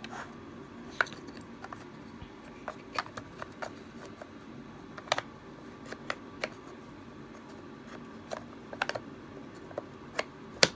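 Irregular sharp clicks and light knocks of a puzzle box's pieces being handled and slotted back together.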